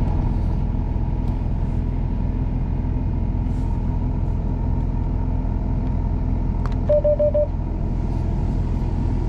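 Combine harvester running steadily at harvest, a dense, even machine drone. About seven seconds in come four quick electronic beeps from the machine's cab alarm or monitor.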